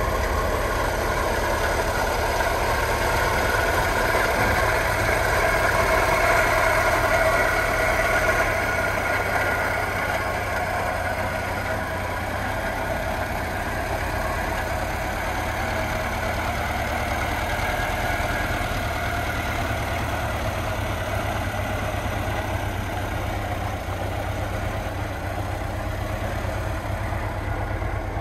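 Żuk A15 van's four-cylinder petrol engine idling steadily, a little louder for a few seconds early in the walk-around, with low rumble beneath.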